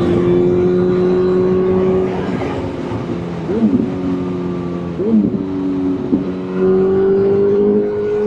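Motorcycle engine running at a steady cruise, its note stepping to a new pitch a few times, with short throttle changes about three and a half and five seconds in.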